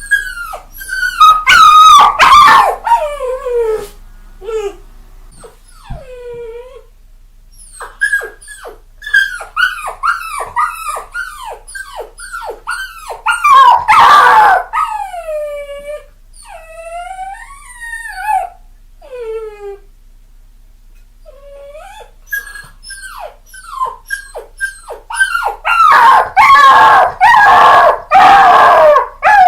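Young puppies crying and whining: rapid runs of short, high cries that each slide down in pitch, coming in bouts with brief pauses. The cries crowd together and grow loudest about two seconds in, around the middle, and again near the end.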